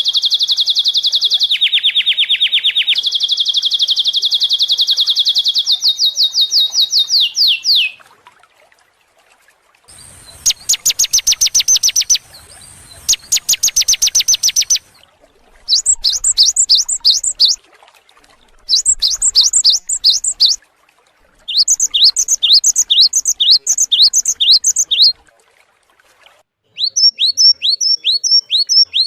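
Songbird song: a long, very fast high trill for about eight seconds that jumps up and down in pitch a couple of times. It is followed by short runs of rapid trilling and by phrases of quick downward-sweeping whistled notes repeated several times, with brief pauses between the phrases.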